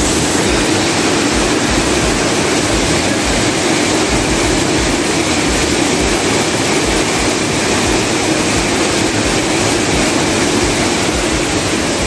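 Waterfall crashing onto rocks: a loud, steady rush of falling water.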